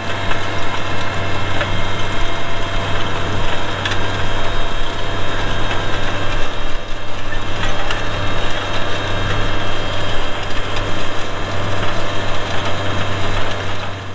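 Tractor engine running steadily with a constant low hum, under a dense rush of mechanical and field noise.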